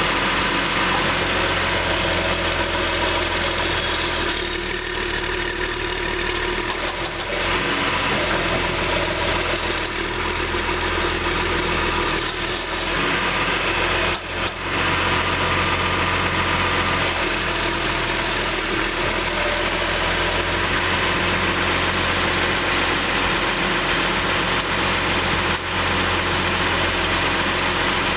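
John Deere 710D backhoe loader's diesel engine running steadily. The sound changes for a few seconds around five seconds in and again around twelve seconds in, and dips briefly just after.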